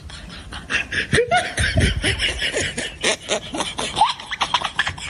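Laughter: a run of snickering and chuckling bursts, rising and falling in pitch.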